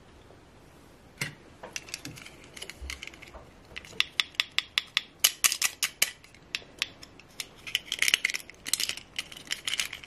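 Small plastic princess doll and its clip-on plastic gown being handled and pressed together: a rapid run of sharp clicks and taps, starting about a second in and thickening from about four seconds.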